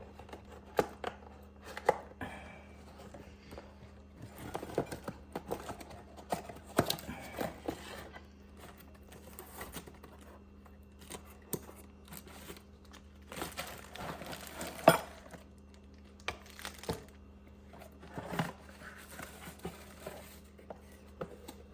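A cardboard product box being opened and unpacked by hand: tearing, crinkling packing material and scattered clicks as parts are handled, with one sharp knock about fifteen seconds in.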